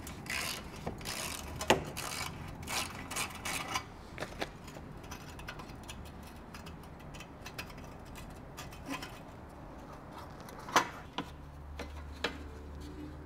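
Hand-tool work on a motorcycle exhaust: quick clicking and scraping strokes for the first few seconds as a worm-drive hose clamp on the mid-pipe is undone, then scattered metal clicks and a couple of sharp knocks as the heat shield is worked loose.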